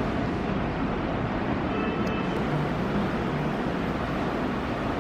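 Steady, even rushing background noise, with a faint short tone about two seconds in.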